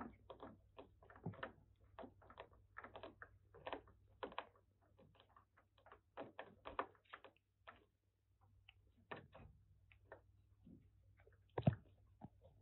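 Kitten gnawing on the rim of a plastic food bowl: an irregular run of small clicks and scrapes of teeth on plastic, with a short lull about two-thirds through and the loudest click near the end.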